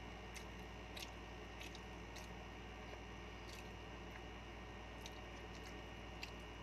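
Faint eating sounds: chewing, with soft wet squishes of fingers working rice and sisig, and scattered small clicks and smacks over a steady hum.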